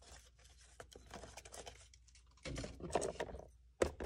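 Faint rustling and scraping of hands handling tools and paint brushes on a cluttered workbench, louder about two and a half seconds in, with a sharp click near the end.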